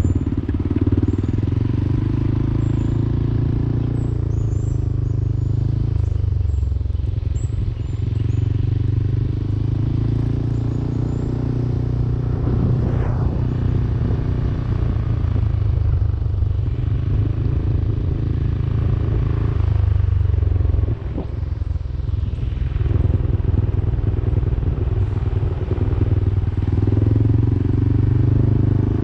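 Yamaha Aerox 155 scooter's single-cylinder engine running while riding, its note easing off and picking up again several times with the throttle.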